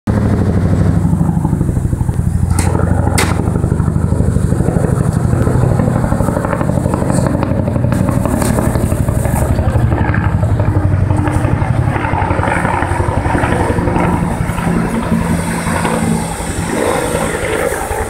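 Bell Huey-family helicopter, a two-blade main-rotor Bell 205/212 type, flying over on approach. Its rotor beats in a fast, steady throb that eases a little near the end.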